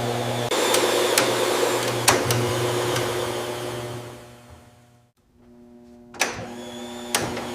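Vacuum cleaner motor running with a steady hum and hiss and a few sharp clicks. It winds down to near silence about five seconds in, then switches back on with a click and runs again.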